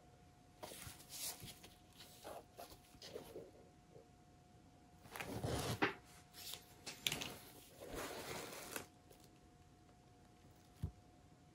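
Faint, scattered rustling and handling noises, a few lasting about a second near the middle, over a faint steady hum.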